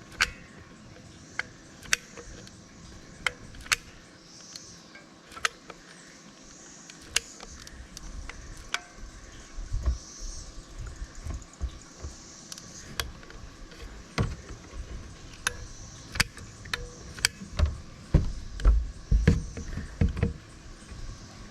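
Caulking gun being worked to seal a fill pipe: sharp, irregular clicks of the trigger and ratchet, roughly one every second or so. A low, uneven rumble sets in about a third of the way through and is heaviest near the end.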